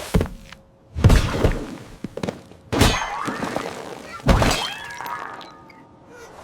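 Cartoon slapstick sound effects: a run of heavy thuds and crashes, about four of them a second or so apart, each trailing off with a crashing, ringing tail.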